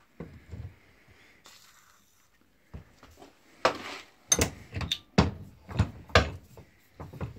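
A short faint hiss of an aerosol spray nozzle (WD-40 going into the dynamo's screw holes), then a series of about six sharp metal knocks and clunks as the heavy cast dynamo body is shifted and set upright in a steel bench vise.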